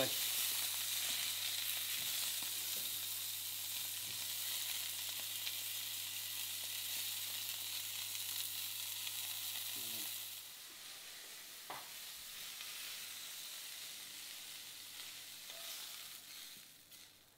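Muntjac venison steaks sizzling in olive oil in a hot frying pan as they sear and brown. The sizzle drops noticeably about ten seconds in, a single click sounds shortly after, and the sizzle fades away near the end.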